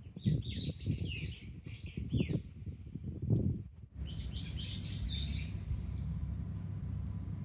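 A small songbird singing in two bouts of quick, falling notes, the second starting about four seconds in. Irregular low thumps come through the first half, and a steady low rushing noise takes over from about four seconds in.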